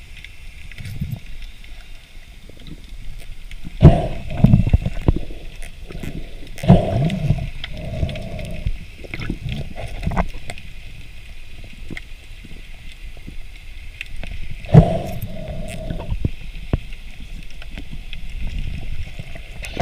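Underwater sound picked up by a diver's camera: a steady low rush of water with several sudden knocks, each followed by about a second of low rumble, the strongest about four seconds and fifteen seconds in.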